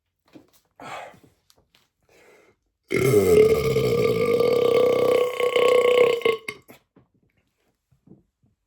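A man's long, loud belch of about four seconds, starting about three seconds in, holding a steady pitch and cutting off abruptly. A short faint sound comes about a second in.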